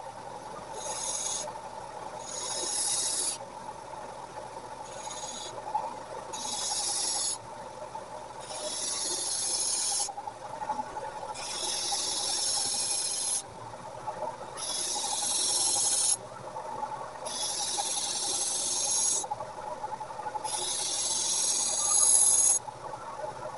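About nine long rasping hand strokes of an abrasive worked along the leaf-spring steel blade, each one to two seconds long and growing louder through the stroke, with short pauses between them.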